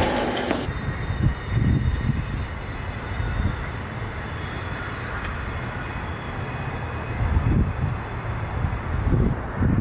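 A loud noisy burst that cuts off about half a second in, then a steady rushing background noise with irregular low gusts of wind buffeting the microphone.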